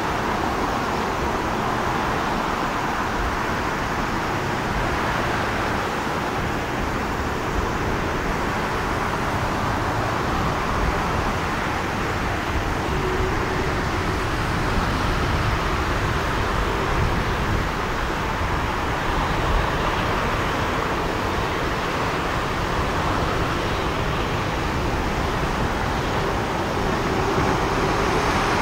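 Jet engines of an Air China Airbus wide-body airliner on its takeoff run and climb-out, a steady rushing roar with low rumble and a faint hum that comes and goes.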